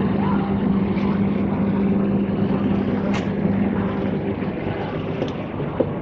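Steady mechanical hum with a strong low drone, like a motor or fan, over a constant rushing noise; the drone fades after about four and a half seconds.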